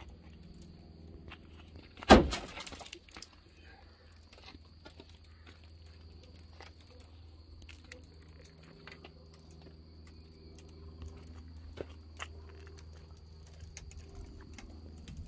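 Car window glass being struck and breaking: one sharp crack about two seconds in, followed by about a second of crackling as the glass breaks up.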